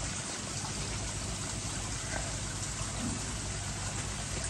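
Steady splashing of water falling over a waterfall cascade into a koi pond, with a low steady hum beneath it.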